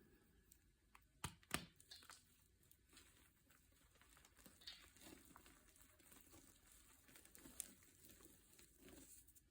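Quiet handling noises: two sharp taps about a second and a half in, then scattered light clicks and faint crinkling.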